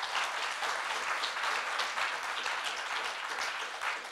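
Audience applauding in a theatre hall, a steady round of clapping that begins to fade near the end.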